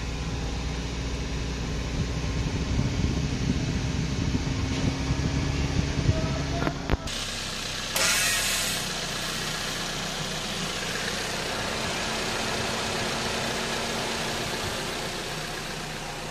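Car engine idling steadily, heard with a deep exhaust rumble at the tailpipe for the first seven seconds, then from the engine bay with less low rumble. A sharp click about seven seconds in, and a short rush of noise about a second later.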